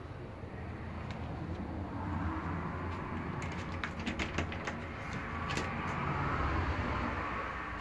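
A steady low rumble with a quick run of sharp clicks and knocks between about three and a half and four and a half seconds in, and one more click shortly after.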